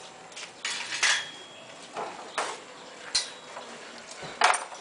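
Sharp metallic clinks as stainless steel railing parts and tools are knocked together, about six separate strikes, one ringing briefly and the loudest near the end.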